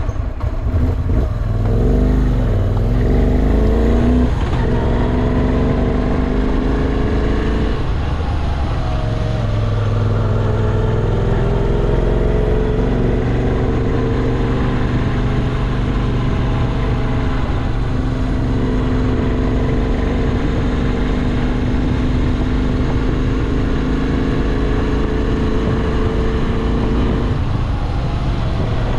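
Moto Guzzi V7 Classic's air-cooled OHV transverse V-twin running under way. Its pitch rises and falls through gear changes, with a few dips where it shifts, and otherwise holds a fairly steady speed.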